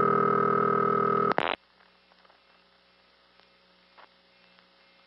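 Old-style buzzy telephone ringback tone heard down the line while a call to the busy-line verification number rings. The ring cuts off with a click about a second and a half in, leaving a quiet line with a faint hum until the next ring.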